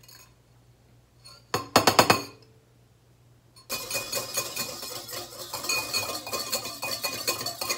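A quick cluster of sharp clinks about one and a half seconds in, then from about halfway a wire whisk beating matcha fast in a bowl: steady rapid metal scraping and clinking against the bowl.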